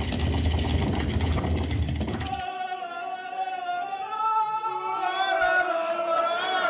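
Band music with drums cuts off abruptly about two and a half seconds in. Men's voices follow, singing together and holding long, slowly sliding notes.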